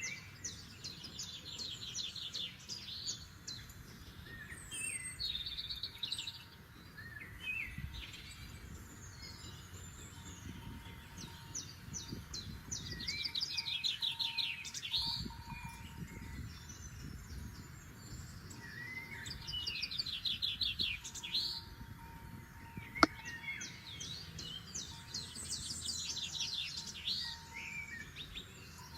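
Forest songbirds singing: short, rapid, high trilled phrases repeated every few seconds, over a low steady background hiss. One sharp click about 23 seconds in.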